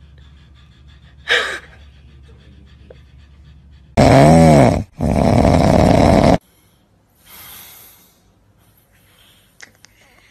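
A short call about a second in, then a loud, drawn-out animal cry about four seconds in that rises and falls in pitch for about two seconds, with a brief break in the middle. Faint breathing-like sound follows.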